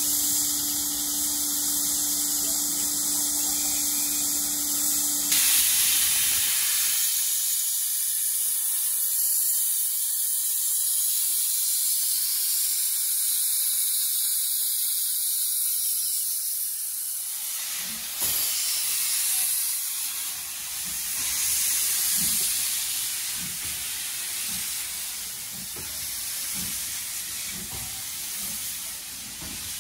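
Steam locomotive blowing off steam with a loud, steady hiss, its safety valves lifting. A steady low hum sounds under the hiss for the first five seconds. From about 18 seconds in, slow, evenly spaced exhaust beats join the hiss as the engine gets under way.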